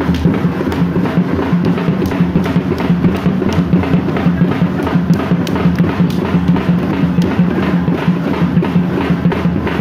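Loud, fast drumming with many quick strikes and a deep drum beneath, the drum accompaniment to a Muharram stick-fighting game.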